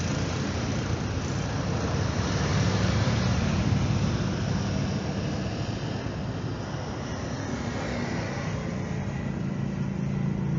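Steady rumble of airliner jet engines at low thrust as the aircraft taxi on the airfield. It swells slightly a few seconds in and eases off again.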